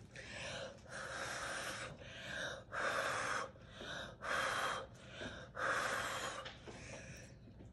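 A person blowing on wet acrylic pour paint with pursed lips, about eight short breathy puffs of air with brief pauses between them.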